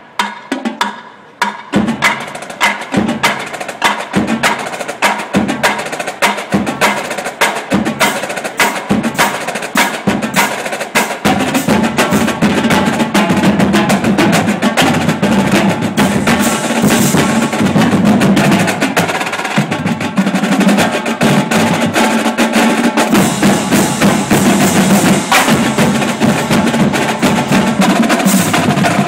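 Marching drumline of snare drums, tenor drums, bass drums and cymbals playing. It starts with accented hits about once a second, then from about eleven seconds in moves into a dense, louder groove.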